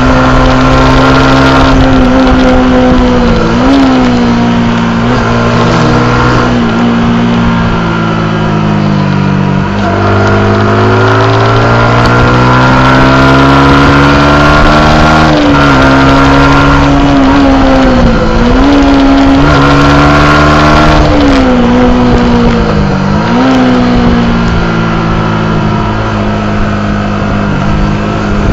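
Yamaha YZF R125's single-cylinder four-stroke engine running hard at high revs, heard from on board. The pitch dips briefly and climbs back several times, with a longer drop and climb about ten seconds in.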